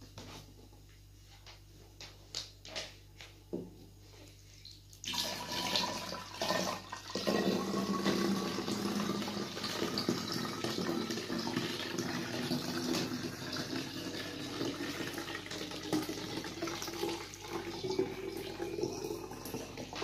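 Water poured from a filter pitcher into a plastic SodaStream carbonating bottle: a steady splashing stream that starts about five seconds in, its pitch rising slowly as the bottle fills. A few light clicks from handling come before it.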